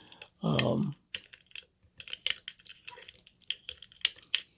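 Light, irregular metallic clicks and taps from a lever lock and its picking tools being handled.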